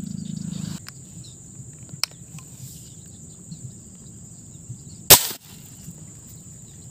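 A single sharp shot from an air rifle about five seconds in, with a brief ring after it. A low steady hum cuts off under a second in, and a lighter click comes at about two seconds.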